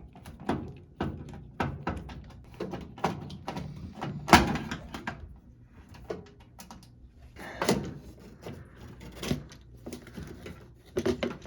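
Irregular clicks, taps and knocks of a screwdriver and hands working the lid switch loose from a GE stackable washer, with three louder knocks about four, seven and a half and nine seconds in.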